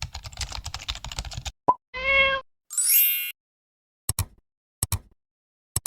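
A string of intro sound effects: rapid typing-like clicking, a short pop, a cat-like meow, a rising glide, then three paired clicks about a second apart.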